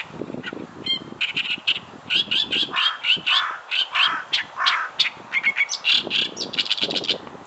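Oriental reed warbler singing: a fast run of harsh, chattering repeated notes that starts about a second in and stops just before the end.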